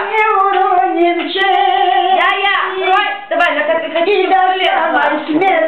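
An elderly woman singing a melody in a high voice, holding long notes with a wavering vibrato.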